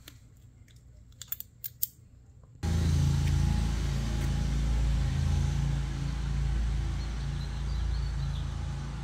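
A few light clicks and a jingle in the quiet, then, about two and a half seconds in, an abrupt switch to a steady low outdoor hum and rumble.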